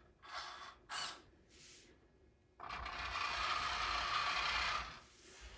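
RC dump truck's small electric servo and gears whirring in three short bursts, then a small electric motor and metal gearbox running steadily with a thin high whine for about two seconds before stopping.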